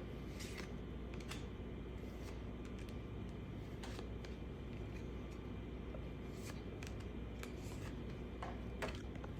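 Baseball trading cards being handled and flipped through by hand: scattered soft clicks and rustles, with a steady low hum underneath.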